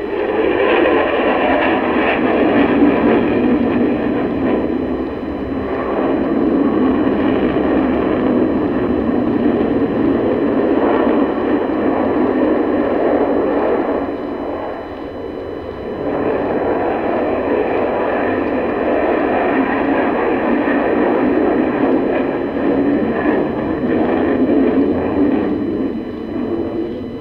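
Sukhoi Su-30 fighter's twin turbofan engines at high power as it flies overhead: a loud, steady jet rush that dips briefly about five seconds in and again around fifteen seconds in.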